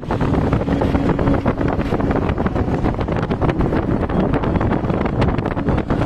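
Loud wind buffeting the microphone, a rough steady rumble with many small crackles, starting abruptly.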